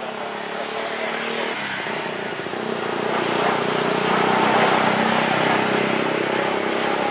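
Airbus A350 jet engines (Rolls-Royce Trent XWB) at takeoff power during climb-out: a steady rushing noise that grows louder toward the middle, with a low drone underneath.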